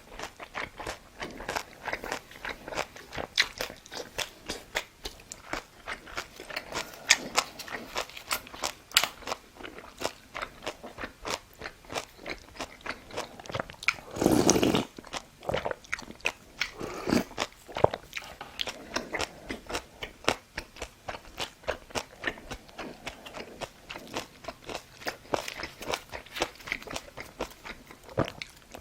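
A person chewing and biting sushi and side dishes, a steady run of wet, crunchy clicks of the mouth and food. About halfway through comes a louder noise lasting about a second.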